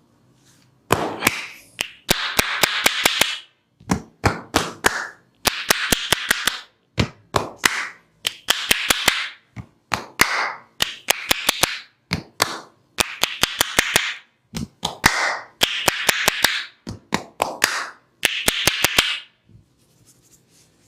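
A masseur's hands working the body percussively: quick runs of sharp slaps or claps, about six a second, alternating with about a second of rubbing hands on skin, in a repeating rhythm.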